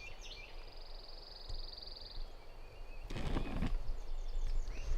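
Small songbirds singing: a rapid, even trill for about two seconds, then chirping calls near the end. A short burst of rustling comes about three seconds in, over a low steady rumble of wind.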